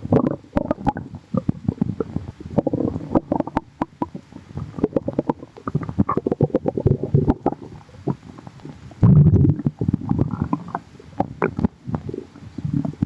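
Human stomach growling with bubbly gurgles: an irregular run of quick pops and gurgles, with a louder, deeper gurgle about nine seconds in.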